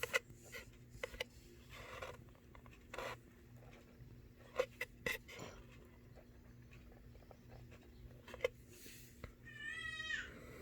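A domestic cat meows once, a wavering call of under a second near the end. Before it come scattered light clicks and knocks of items being handled and set down.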